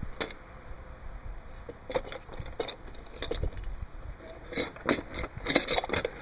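Irregular small clicks, knocks and rattles of a metal secondary-air diverter valve and rubber vacuum hose being handled on a wooden table. A denser run of clicks near the end comes from a hand vacuum pump being squeezed to draw vacuum on the valve.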